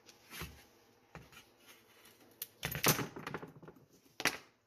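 Steel Ford Model T transmission bands being handled and set down on a hard shop surface: scattered metallic clicks and clatter, a dense rattle about three seconds in, and one sharp knock near the end.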